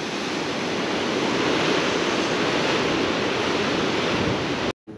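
Steady rush of surf breaking on the rocks below mixed with wind on the microphone, cutting off abruptly near the end.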